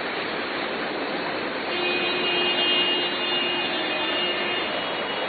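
Steady rushing noise of floodwater and rain in a flooded street, with a faint steady tone for about three seconds in the middle.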